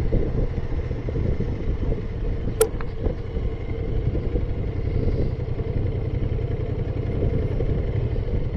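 Motorcycle riding along, its engine and the road noise making a steady low rumble, with a short sharp click about two and a half seconds in and a fainter one just after.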